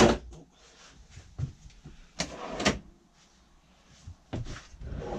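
Wooden kick-board drawers running on ball-bearing drawer runners being pushed shut and pulled open: a loud slide and knock at the start, two more about two seconds in, and another near the end. The runners are newly fitted and some are still stiff.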